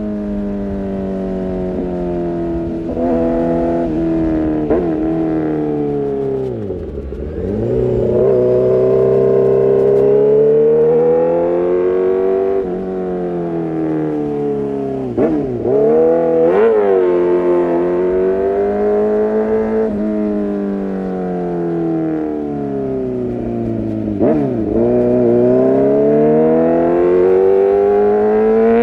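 Kawasaki ZX-6R inline-four engine through an Arrow Pro-Race exhaust, running under way. Its pitch drops sharply and climbs back again several times, about 7, 15 to 16 and 24 to 25 seconds in, as it slows and pulls away again.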